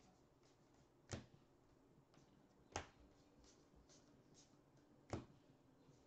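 Baseball trading cards being flipped through by hand, one card snapping off the stack about a second in, again near three seconds and near five seconds, with fainter ticks of card edges between, in an otherwise quiet room.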